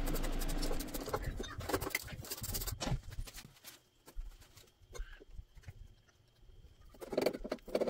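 Carburetor being worked off a Briggs & Stratton lawn-tractor engine by hand: scattered small metal clicks and scrapes, a quieter spell, then a few louder knocks near the end. A steady hum cuts off about a second in.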